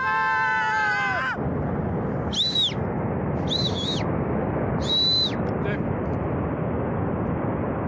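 Steady rushing noise of the glacier-burst debris flood surging down the gorge. A man shouts over it in the first second or so, then three short high whistles sound about a second apart.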